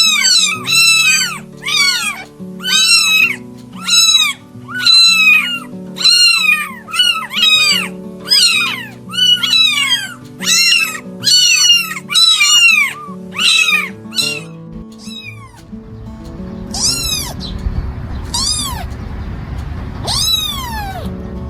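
A cat meowing over and over, about two high-pitched meows a second, then after about fifteen seconds only a few longer meows over a low rumbling noise. Soft background music runs underneath.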